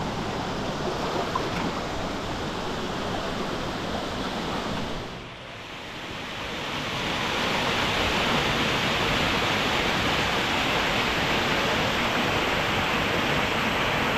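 Water rushing over rocks: shallow river water flowing at first, then, after a brief dip about five seconds in, a small waterfall cascading down a rocky creek, a louder, steady rush.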